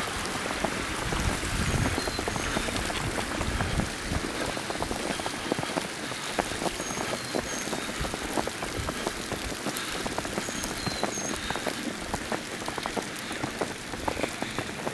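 Winter storm precipitation pattering steadily onto the woods, a dense hiss of fine ticks. A few faint, short high chirps come through now and then.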